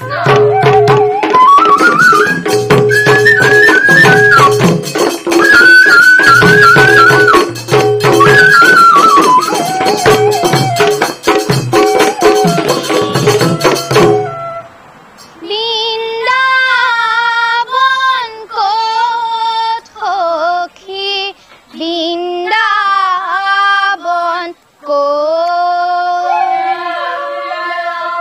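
Assamese dihanam devotional music. Khol drums beat under a bamboo flute playing a rising and falling melody, and the instruments stop abruptly about halfway through. Young women's voices then sing an unaccompanied devotional line, their pitch bending and wavering.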